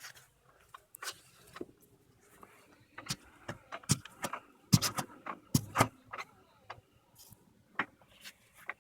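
Front right driveshaft CV joint of a Peugeot 306 clicking and knocking irregularly as the wheel is turned by hand, with a cluster of louder knocks in the middle. The joint is worn and close to failing after running with a split boot.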